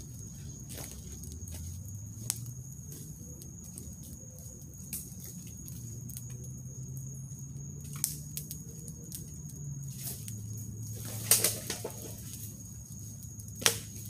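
Wood campfire burning, with a steady low rush of flames and scattered sharp pops from the burning wood; the loudest pops come in a quick cluster about eleven seconds in and once more near the end.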